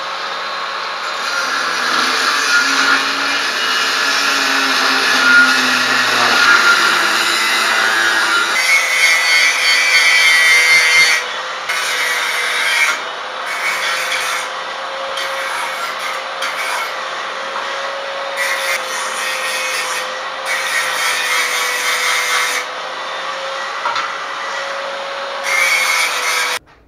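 Corded angle grinder running with its disc working a thin, rusty steel U-channel: a harsh metal-on-disc noise over a steady motor whine. The noise changes about eight seconds in, dips briefly several times after that, and cuts off just before the end.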